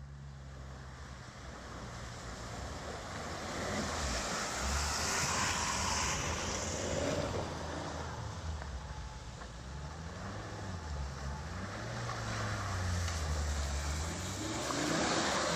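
Volvo XC70 estate driving through deep muddy water under load, its engine revs rising and falling repeatedly. Water and mud splash from the tyres, loudest about five to six seconds in.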